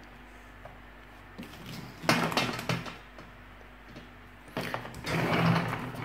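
Hands handling the plastic and steel body of a wet-and-dry vacuum cleaner that is switched off: short rustling knocks about two seconds in and again near the end.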